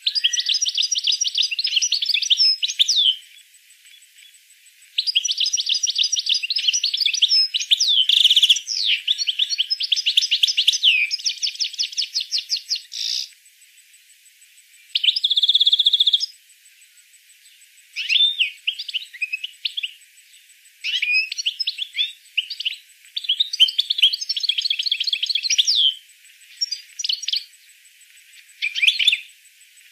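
A small songbird singing in phrases of fast trills and chattering notes, each a few seconds long with short pauses between them, with one steady whistled note held for about a second about halfway through.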